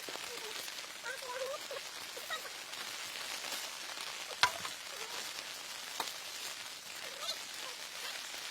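Steady pattering hiss of precipitation on a surface, with one sharp crack about halfway through and a smaller click shortly after. Faint voice-like sounds sit underneath.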